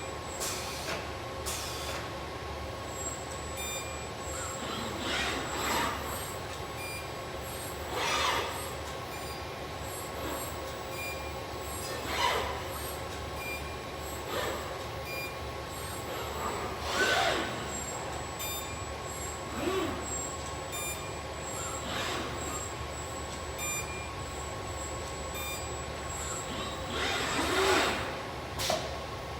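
Car-parts welding machine running: a steady hum with constant high tones, broken by short hissing bursts every two to five seconds.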